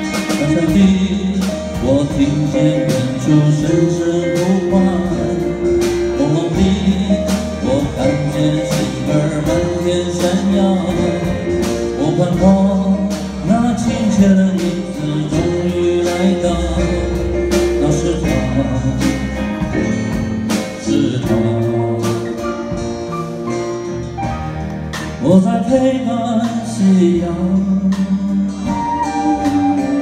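A Taiwanese campus folk song performed live: a man singing lead over acoustic guitar with a backing band, bass, and drums keeping a steady beat.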